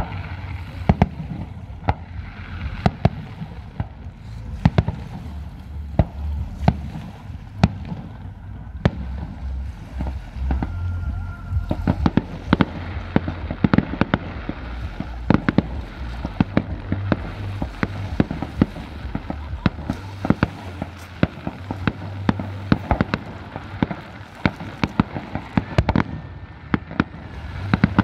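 Fireworks display: aerial shells bursting in a run of sharp bangs at irregular intervals, over a continuous low rumble of booms. The bangs come thicker from about halfway through.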